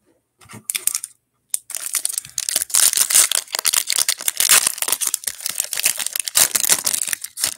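Foil wrapper of a Panini NBA Hoops trading-card pack crinkling and tearing as it is ripped open by hand. A few light crackles come in the first second, then a dense crackle from about two seconds in that stops just before the end.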